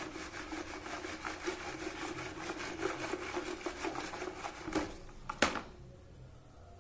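A stick scraping round the inside of a plastic bucket as acid solution holding burned, ground phone scrap is stirred after a little sulfuric acid is added. The rapid, rhythmic scraping ends about five and a half seconds in with one sharp knock, the loudest sound.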